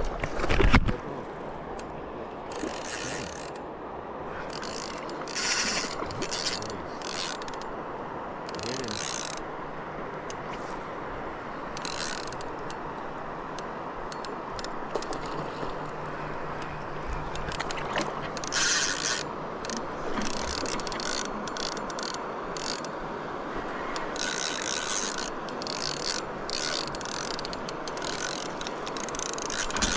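Fishing reel being cranked, its gears and line roller rattling as line is retrieved, against a steady background rush.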